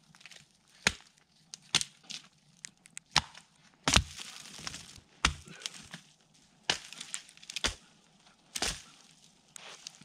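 Conifer branches snapping with sharp woody cracks as they are broken off a snow-laden tree, about nine cracks at uneven spacing, roughly one a second.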